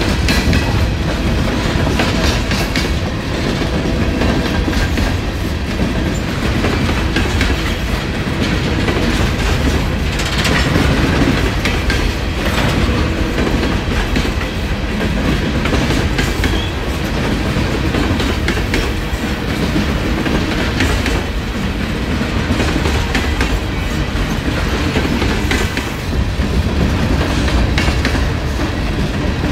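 Coal hopper cars of a coal train rolling past, a steady rumble with the wheels clicking over the rail joints.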